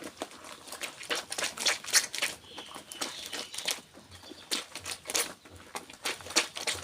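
Clothes being washed by hand: fabric scrubbed and rubbed together in quick, irregular rustling strokes.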